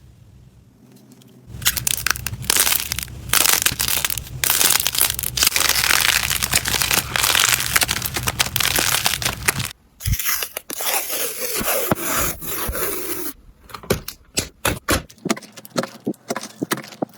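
Hands pressing and squishing slime, giving dense crackling and popping. About ten seconds in a cut brings a different crackly clip, and near the end come separate sharp pops and clicks.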